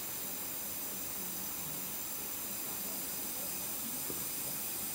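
Steady, faint hiss of room tone, with no distinct event standing out.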